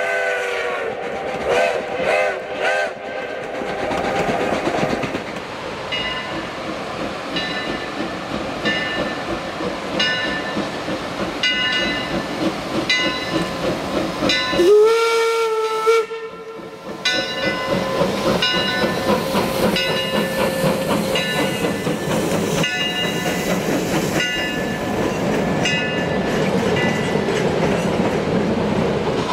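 A steam locomotive's whistle sounds at the start, then railroad cars roll past with a regular clicking of wheels over the rails. About halfway through, the steam whistle of Eureka and Palisade No. 4, an 1875 4-4-0, gives a single blast a little over a second long that rises in pitch as it starts.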